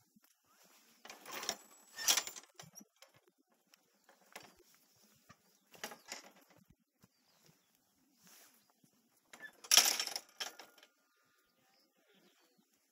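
Irregular bursts of scuffing and rustling from handling and movement right next to a helmet-mounted camera, loudest about a second in and again about ten seconds in.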